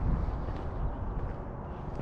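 Wind buffeting the camera's microphone: an uneven low rumble that rises and falls, with a few faint, short high chirps.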